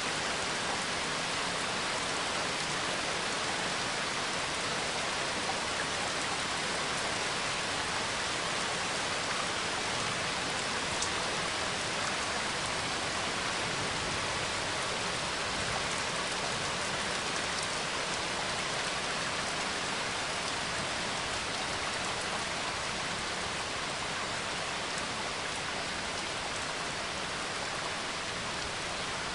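Steady rain falling, an even hiss of drops at a constant level throughout.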